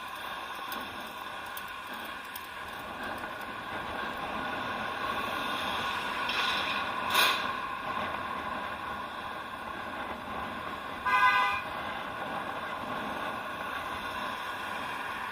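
Steady road-traffic noise, with a brief sharp noise about seven seconds in, then a single car horn honk about eleven seconds in, lasting about half a second.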